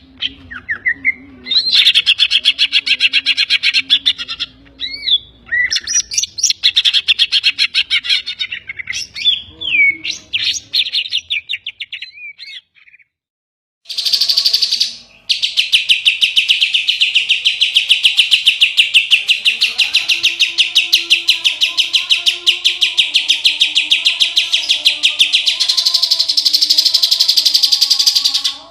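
Greater green leafbird (cucak ijo) singing loudly. Varied whistled phrases with sliding notes give way, after a short pause about halfway through, to a long fast trill. Its song is filled with mimicked calls of the kapas tembak and tengkek.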